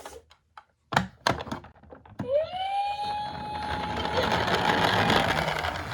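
A few sharp clacks of die-cast toy ambulances, then many of the toy cars rattling as they roll down a slope together. A siren sound winds up about two seconds in and holds one steady pitch over the rattle.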